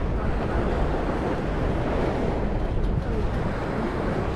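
Steady rush of wind on the microphone and water along the hull of a moving passenger ferry. It is an even, unbroken noise heaviest in the low end.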